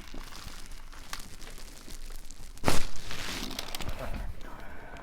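Crinkling and rustling throughout a chiropractic adjustment, with one short, loud, sudden pop-like thud about two and a half seconds in as the thrust is delivered.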